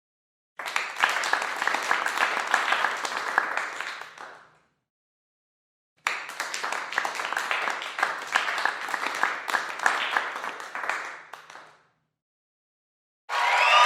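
Two separate takes of a group applauding, each starting abruptly with dense clapping and fading away over its last second or so, with dead silence between them.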